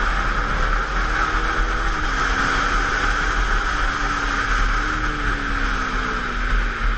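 KTM Duke 390's single-cylinder engine running at speed on track. Its pitch climbs and drops sharply about two seconds in, then climbs again near five seconds and eases off. Heavy wind rush on the bike-mounted camera is louder than the engine.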